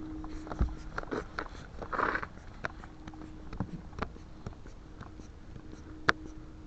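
Scattered light clicks and taps of locksmith lockout tools (wedge and long reach rod) working at the car door, with the sharpest click about six seconds in.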